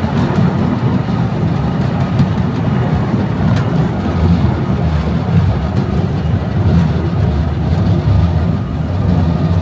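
Wooden roller coaster train rolling along its curving track: a steady low rumble of the wheels on the rails, with a few light clacks.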